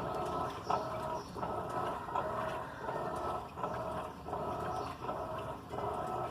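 Electrolux LAC16 top-loading washing machine agitating the wash: a swishing back-and-forth in an even rhythm of about one stroke every three-quarters of a second.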